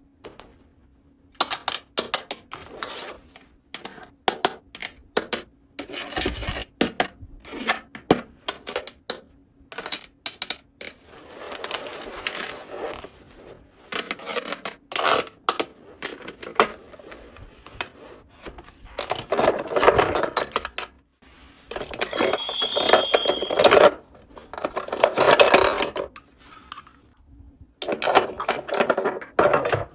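Small plastic toy pieces being handled: irregular clicks, taps and light clatters, with longer stretches of rustling and scraping in between.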